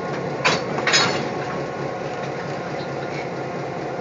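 Railway locomotive running steadily at rest beside a coupling with a passenger car. About half a second in come two short, sharp noises about half a second apart.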